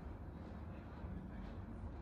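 Steady low background hum with faint room noise; no distinct handling sounds.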